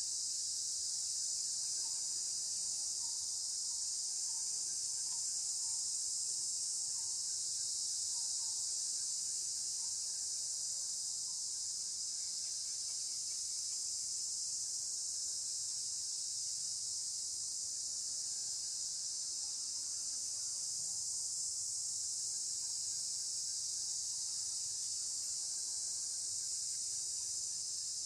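A steady, high-pitched insect chorus, droning without a break.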